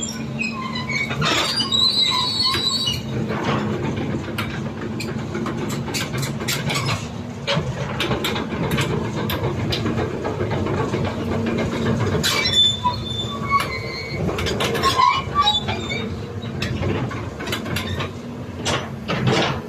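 CAT 320D crawler excavator working: its six-cylinder diesel engine runs steadily while high metal-on-metal squeals come and go, in the first few seconds and again past the middle, amid repeated sharp clanks of steel parts.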